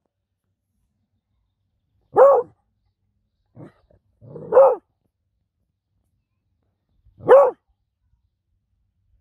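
Beagle puppy barking: three short barks about two and a half seconds apart, each rising and then falling in pitch, with a faint softer sound just before the second.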